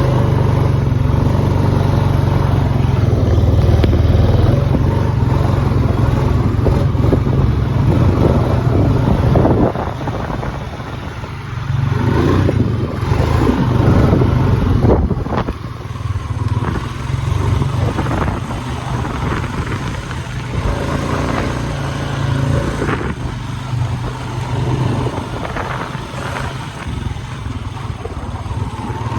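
A motor vehicle's engine running while it is ridden, over a heavy low rumble. The sound is loudest for the first ten seconds, then drops and rises unevenly.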